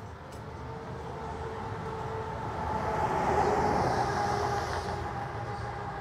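A vehicle passing by, its noise swelling to a peak a little past halfway and then fading.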